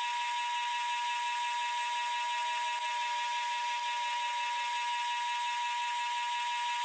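A single steady high-pitched tone, like an electronic beep, held unbroken over a faint hiss with no machine sound beneath it.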